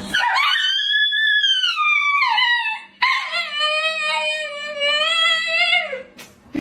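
A dog howling: two long drawn-out calls, the first rising and then falling, the second held steady and dropping at its end.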